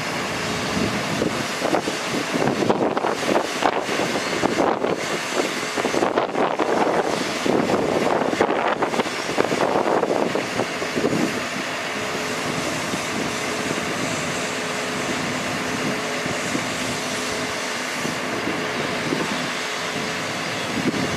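Cummins 6.7L ISB diesel engine of a Ford F750 bucket truck running with the PTO engaged to drive the Altec aerial boom's hydraulics. Wind gusts buffet the microphone through the first half, then a steady hum holds.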